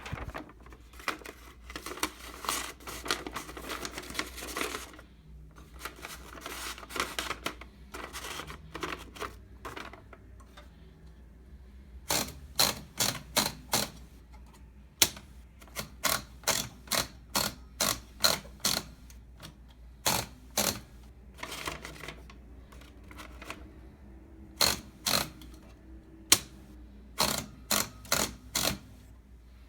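Manual typewriter's platen mechanism being worked by hand: dense runs of fast ratchet clicks at first, then sharp separate clicks in quick groups from about halfway on. The platen fails to roll the paper in.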